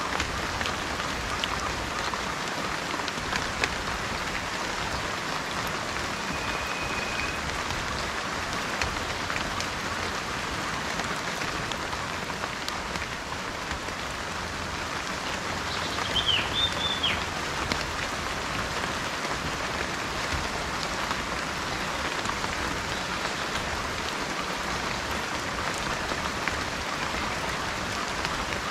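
Steady rain falling, with a dense patter of drops. A bird gives a brief chirp a little past the middle.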